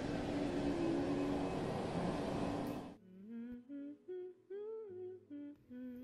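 A loud steady rushing noise that cuts off suddenly about three seconds in, then a woman humming a slow tune, a string of short held notes stepping up and down.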